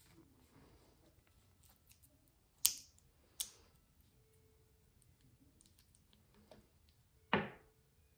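Sharp clicks of a small bottle and its cap being handled by long fingernails: two light clicks a little under a second apart, then a louder knock near the end.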